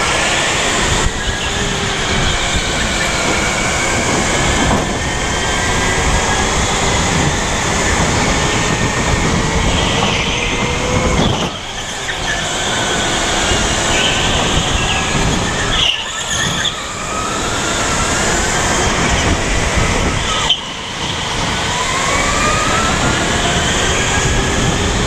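Onboard go-kart sound at racing pace: a motor whine that rises and falls with speed over a loud rush of tyre and running noise, easing off briefly three times.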